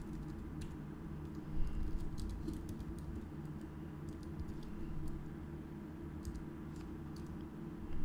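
Typing on a computer keyboard: irregular key clicks coming in short bursts with pauses between them.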